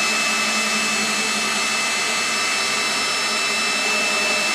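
Cordless drill running fast, spinning the CNC router's half-inch-lead Y-axis lead screw and driving its carriage along the gantry rails: a steady whir with a few constant tones.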